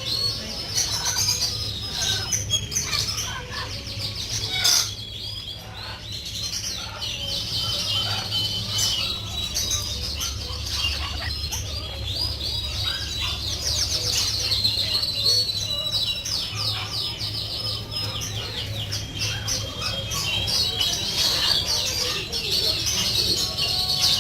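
Many small caged birds chirping and twittering at once in a dense, continuous chorus, with a steady low hum underneath.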